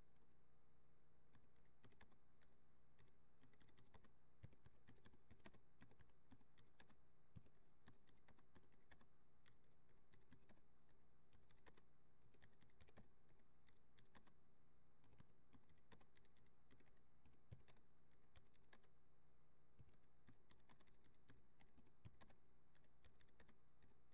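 Faint typing on a computer keyboard: irregular key clicks throughout, over a low steady hum.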